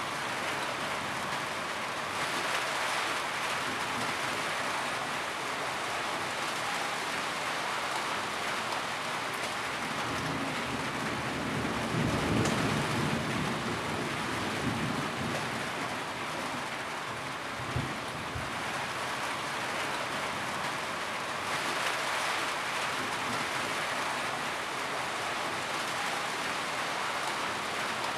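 Steady rain falling, an even hiss of drops, with a low rumble that swells and fades about halfway through and a short low thump a few seconds later.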